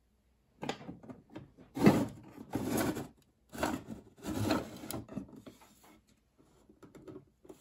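Wooden slatted roll-top of a bread bin pushed open by hand in a few strokes, the slats rubbing as they slide back in their grooves, followed by a few light knocks.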